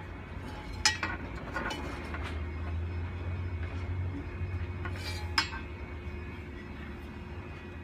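A few light clinks and taps as the Raymarine EV-100 wheel pilot's plastic pedestal bracket and peg are knocked into place against the wheel pedestal and stainless steering wheel, the sharpest about a second in and again just past five seconds, over a steady low hum.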